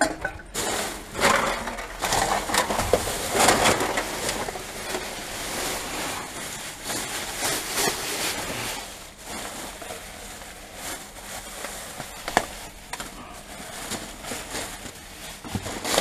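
Plastic rubbish bags and loose rubbish rustling and crinkling as they are pulled apart and shifted by hand, busiest in the first few seconds, with one sharp knock about twelve seconds in.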